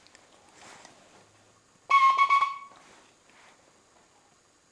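A flute sounding Morse code letter D (dash-dot-dot): one short group of notes on a single steady pitch, about two seconds in.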